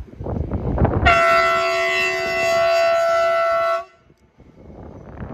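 Locomotive horn sounding one long, loud blast of about three seconds that cuts off sharply, over the rumble of a train on the track.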